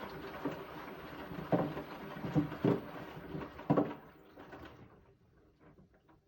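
Beko WTK74011W washing machine drum tumbling a load of wet bedding: a sloshing wash sound with soft thuds, which dies away about four to five seconds in and leaves a few faint clicks.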